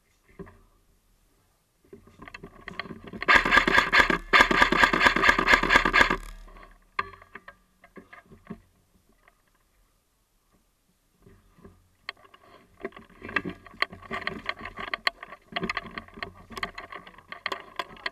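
Airsoft electric gun firing a long full-auto burst of about three seconds, a fast even run of shots. Later come scattered clicks and knocks.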